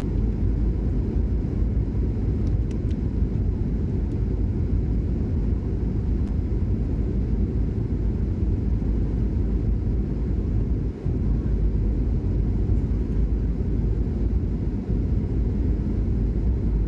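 Steady low rumble of jet engine and airflow noise heard inside the cabin of a SpiceJet Boeing 737 descending on approach with its flaps extended, dipping briefly about two-thirds of the way through.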